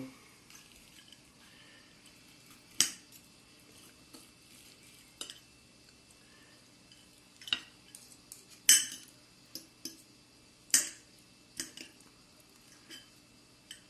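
Knife and fork clinking against a glass plate while cutting a fried breaded onion ring: about a dozen sharp, scattered clinks, the loudest a little past the middle.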